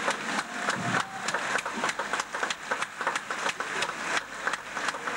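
Scottish country dance band music at a quick tempo, with a sharp, steady beat about three to four times a second.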